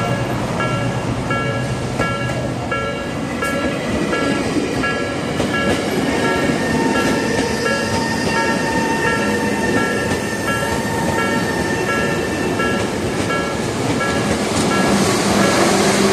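Japanese level-crossing warning bell clanging about one and a half times a second while a Tokyo Metro 03 series train runs in. The train's rumble and a steady whine rise under the bell, and the train noise grows louder near the end.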